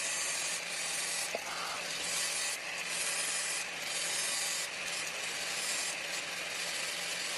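Steady hand scraping of a welded metal lighter part being smoothed down, in strokes about once a second.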